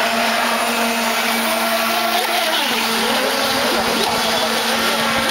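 Radio-controlled model powerboats running flat out across the water: a steady, high-pitched motor whine whose pitch wavers as the boats pass.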